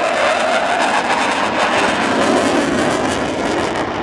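Military aircraft flying past at an air show: a loud, crackling engine roar that drops slowly in pitch as it passes.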